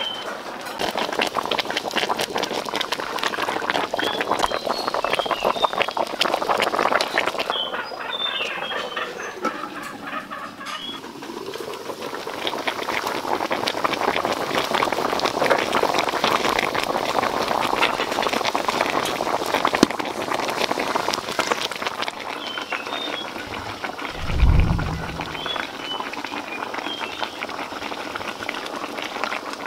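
Pork trotter broth boiling in an open wok, a steady bubbling crackle. Birds chirp at times, and there is one low thump about 24 seconds in.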